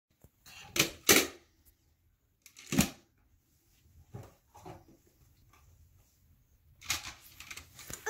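Plastic magnetic building tiles clacking against each other and snapping together as they are handled. There are several sharp clacks, the loudest ones about a second in and near three seconds, softer ones after that, and a quick cluster near the end.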